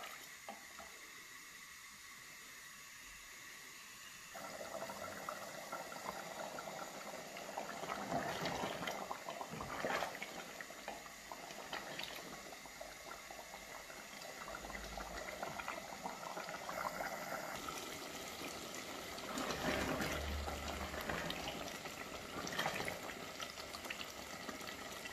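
Lamb chops in a watery masala bubbling on the boil in an open aluminium pressure cooker while a wooden spoon stirs them, with occasional scrapes against the pot; the water is being cooked off. The bubbling is quieter for the first few seconds, then grows louder about four seconds in.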